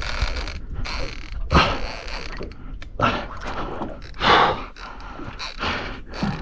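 Fishing reel working under heavy load against a big fish, its gears and drag ratcheting. The angler's strained breaths rise over it about 1.5, 3 and 4.5 seconds in.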